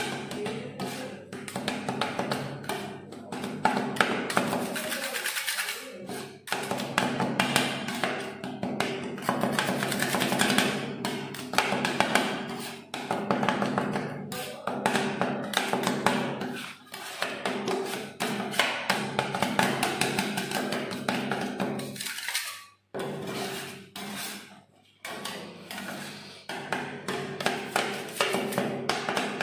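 Two metal spatulas rapidly chopping and tapping on the frozen steel plate of a rolled ice cream machine, breaking strawberry cake into the mixture, with a few short pauses.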